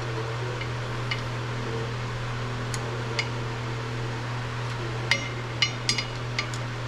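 Light metallic clinks of hand tools against metal during brake-line work on a truck: a few scattered clinks, then a quick cluster about five seconds in. A steady low hum runs underneath.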